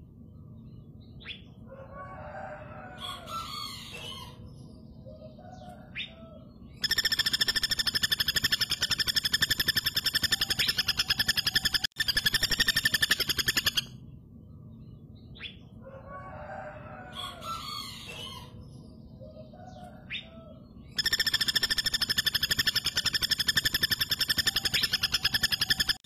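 Female flameback woodpecker calling in two long bouts of a fast, even rattle of sharp notes, each lasting about seven seconds. The first begins about seven seconds in, the second about twenty-one seconds in, with a few faint softer sounds in the quiet stretches between.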